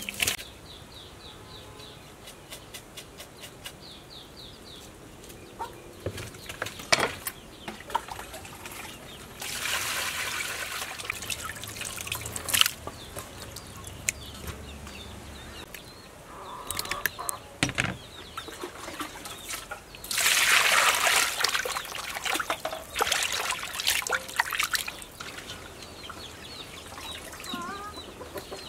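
Water splashing and dripping as raw duck meat is squeezed and rinsed by hand in a steel bowl, loudest in two stretches, a few seconds each, in the middle and the last third. Birds chirp faintly, and a chicken clucks near the end.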